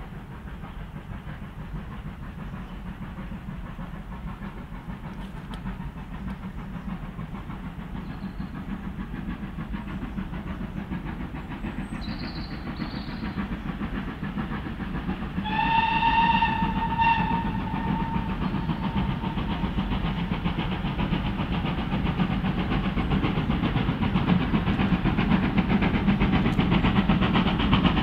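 GWR Manor class 4-6-0 steam locomotive 7812 'Erlestoke Manor' approaching under steam, its exhaust beats growing steadily louder as it nears. About halfway through it sounds its whistle in a blast of a second or so.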